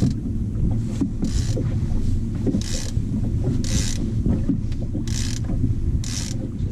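Fishing boat's outboard motor running steadily at trolling speed, a low hum and rumble, with short hissing swooshes coming back about once a second.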